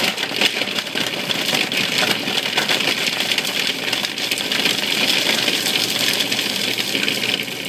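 Food processor running, blending frozen strawberries into sorbet: a steady motor whir with rapid rattling and clicking of the frozen fruit against the blade and bowl.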